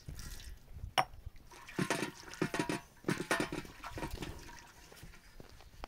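Water poured from a cup, splashing over a metal blade and into a wide metal tray, then a quick run of short scraping strokes in the tray.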